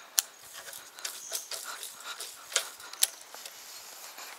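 Irregular clicks, knocks and rustling from an angler moving on a creek bank while handling a baitcasting rod and reel. The sharpest clicks come near the start and again about two and a half and three seconds in.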